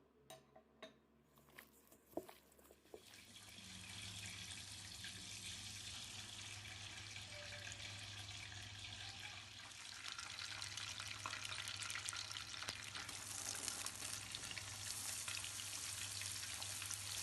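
A few light knocks of utensils on a pan. Then food starts sizzling as it fries in hot oil, a steady crackling sizzle that grows louder about ten seconds in.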